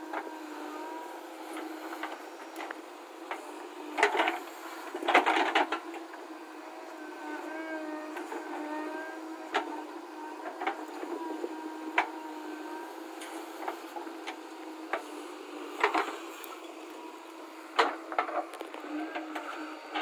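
JCB 3DX backhoe loader's diesel engine running under load with a wavering hydraulic whine as the backhoe digs and loads soil and stones. Sharp clanks and clatters of the bucket and falling stones break in several times, the loudest about four to five and a half seconds in.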